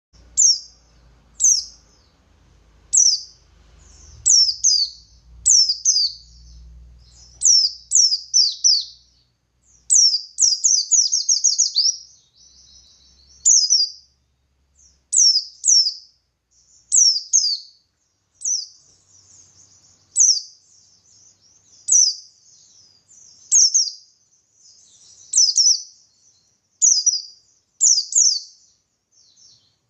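White-eye of the buxtoni race (pleci buxtoni) singing its wild-type 'ngalas' song: loud, high, down-sliding whistled notes repeated every second or two, with a fast run of notes about ten seconds in and soft twittering between.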